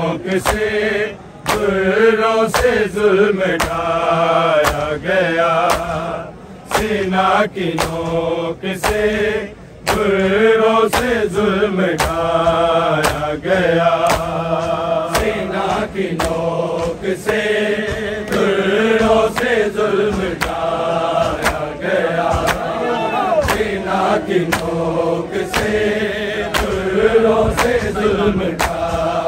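A large crowd of men chanting a noha in unison, with a steady beat of hands slapping bare chests (matam) marking the rhythm.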